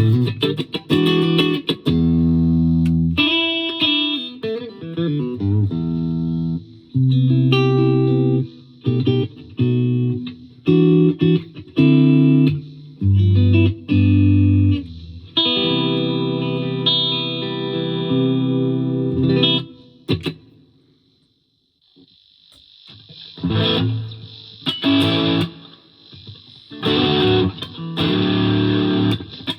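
Electric guitar, a 2006 Gibson Les Paul Classic with a Seymour Duncan SH-1 humbucker through a Fender Mustang LT50 amp, playing notes and chords on the clean setting. After a short pause about two-thirds of the way in, it switches to the overdriven setting, with amp hiss under the distorted chords.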